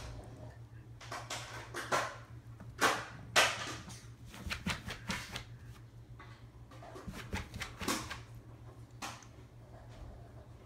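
A Boston terrier puppy playing with a feather: irregular clicks and scuffles, with a few louder short noisy bursts about two to three and a half seconds in.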